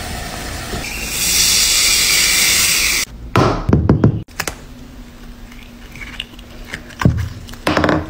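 A steady hiss for about two seconds, then a cluster of soft thunks and taps, with two more near the end, as a small rubbery blue object is handled and pressed on a hard tabletop.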